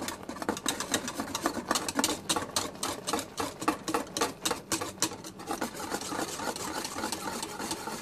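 Wire whisk stirring a boiling chocolate, butter and milk mixture in a metal saucepan, clicking and scraping rapidly against the pan, about five clicks a second in the middle, with the thick mixture bubbling.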